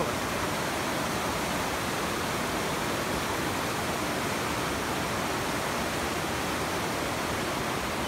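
The Kern River running high, rushing through whitewater rapids in a steady, unbroken rush.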